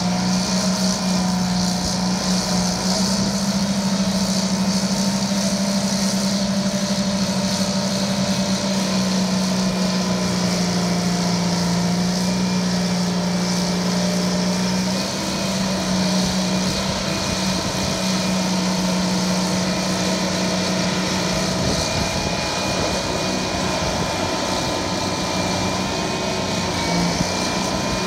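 Euclid TC-12 crawler dozer's twin Detroit Diesel 6-71 two-stroke diesels running hard under load as the blade pushes dirt, a loud, steady drone.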